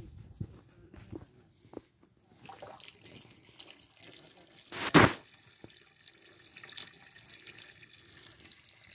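Liquid poured from a plastic bucket into a large steaming cauldron, splashing and trickling, with one brief loud noise about halfway through.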